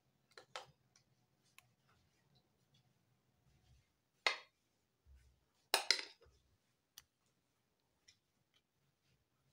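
A spoon spreading thick cream in a glass baking dish, scraping and clinking against the dish: scattered soft clicks, with two louder short scrapes about four and six seconds in.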